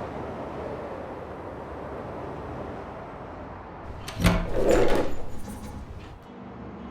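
Steady town traffic ambience, then about four seconds in a loud, sudden clatter of sharp knocks lasting about a second and a half before it dies away.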